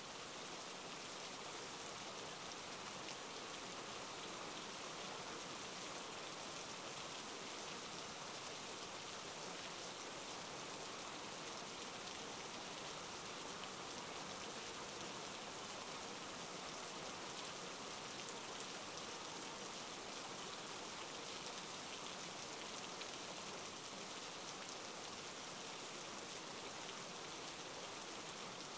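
Steady rainfall: an even wash of many raindrops that holds at one level, with no thunderclaps.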